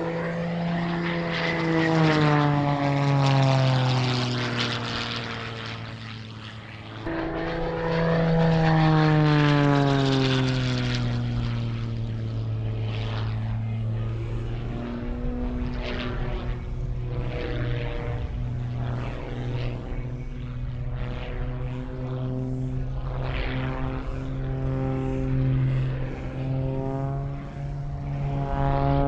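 Propeller-driven aerobatic plane's piston engine at full power through an aerobatic routine. Its note drops in pitch twice as the plane sweeps past, once near the start and again about seven seconds in. After that it runs at a steadier pitch, swelling and fading as the plane manoeuvres.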